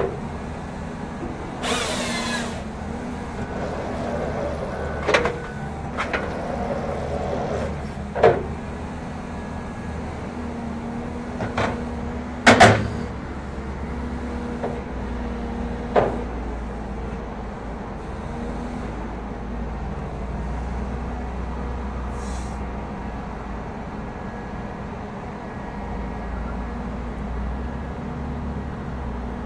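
Cat forestry carrier's diesel engine running steadily while the TreeKing processor head is cycled, with a series of sharp metallic clanks and knocks from the head's moving arms and carriage, the loudest about halfway through, and a short hiss about two seconds in. The second half holds only the steady engine.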